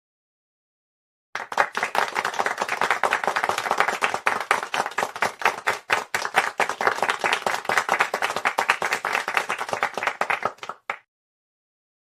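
Applause sound effect: many hand claps close together, starting about a second in, holding steady for nearly ten seconds and cutting off suddenly near the end.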